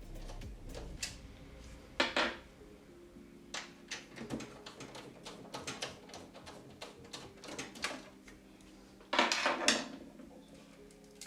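Clicks and clatter of hands working on a desktop PC's graphics card to disconnect it, with two longer scraping rattles, about two seconds in and near the end.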